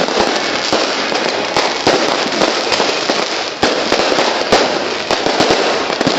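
Fireworks and firecrackers going off in a dense, continuous barrage of crackling, cut by many sharp bangs.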